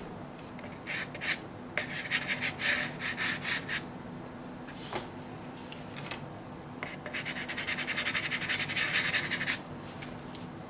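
Soft pastel sticks scratching across toothed pastel paper in quick back-and-forth strokes: a short scratch about a second in, a two-second run of strokes, then a longer run from about seven seconds in.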